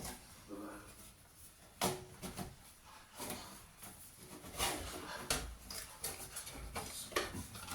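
Scattered clicks and knocks of computer parts and cables being handled and fitted into a desktop PC case.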